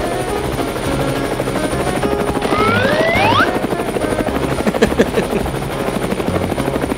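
Cartoon helicopter sound effect: fast, steady rotor chopping over background music, with a rising whistle-like glide for about a second, a little over two seconds in.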